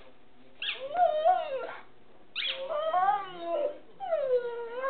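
A dog giving three drawn-out, whining howls in a row, each about a second long and rising and falling in pitch.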